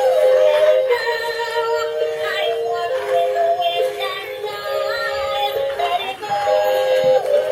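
Electronic tune with a synthesized singing voice, thin-sounding with almost no bass, the notes held and stepping in pitch every half second or so.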